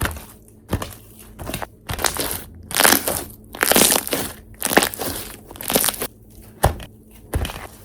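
Bead-filled slime being squeezed and pressed by hand: a dozen or so crackly, squishy crunches in an uneven rhythm.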